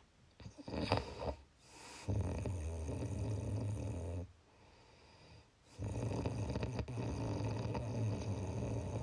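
A person snoring: a few short, irregular breaths at the start, then two long, low buzzing snores, each two to three seconds long, with a quiet breath in between.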